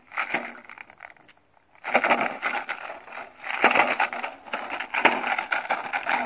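Plastic bottle and plastic bag crunching and crinkling in a Belgian Malinois's jaws as it bites and tugs on them. A brief burst at the start, then after a short pause a long run of crunching.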